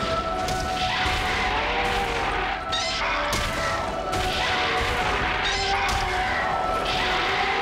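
Kaiju fight sound effects: repeated heavy crashing hits and monster roars as the two suited monsters grapple, over background music.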